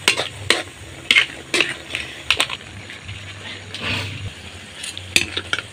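A cooking utensil scraping and knocking against an aluminium wok as crab and young jackfruit are stirred in simmering coconut milk: a series of short, sharp strokes, irregularly spaced, with a pause in the middle.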